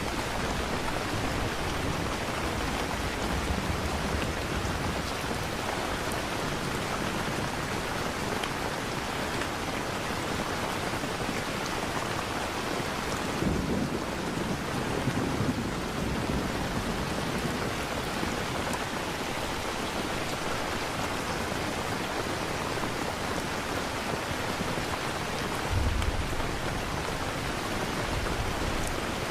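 Steady rain with low rolls of thunder, one long rumble about halfway through and a shorter one near the end.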